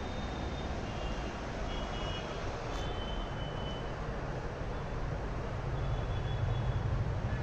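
Steady low rumble and hiss of background noise, with a few faint short high beeps and a single click a little under three seconds in; a low hum grows louder near the end.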